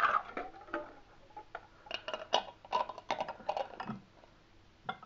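Metal lids being put on and screwed down onto glass jars of freshly filled jam: a scattered run of short clicks and clinks of metal against glass, thickest in the middle.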